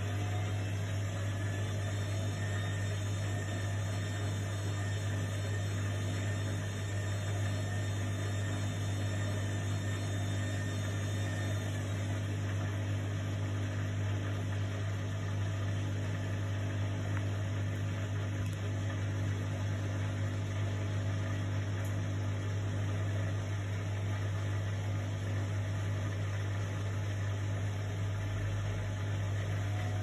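Indesit front-loading washing machine running with a steady, unbroken low hum. A faint high whine rides over it and stops about twelve seconds in.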